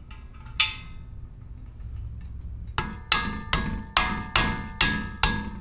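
A mallet striking the chrome handlebars of a mini bike in their clamps to seat them. There is one blow about half a second in, then a steady run of blows from about three seconds, roughly two to three a second, each leaving a short metallic ring.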